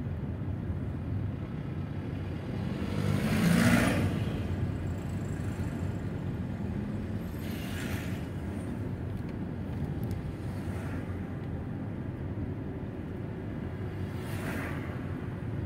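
Steady low engine and tyre rumble heard inside a Mercedes-Benz car driving slowly along a city street. A louder rush of noise swells and fades about three to four seconds in, and two fainter ones come later.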